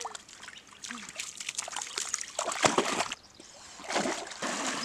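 Water splashing and sloshing as a dog wades through a shallow creek, in uneven bursts, the loudest about two and a half seconds in and again near the end.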